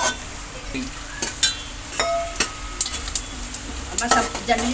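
Spatula stirring and scraping through pieces frying in a metal pan of sizzling ghee, with sharp clinks of the spatula against the pan at irregular intervals.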